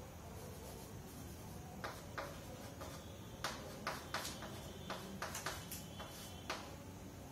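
Chalk tapping and scratching on a chalkboard as writing goes on: a run of short, sharp, irregular strokes beginning about two seconds in, over a low steady room hum.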